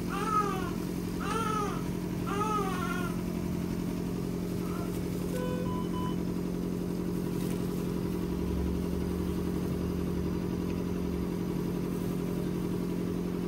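Newborn baby crying in short wails that rise and fall, about one a second, stopping about three seconds in. A steady mechanical hum runs underneath throughout, with a few short electronic beeps about five to six seconds in.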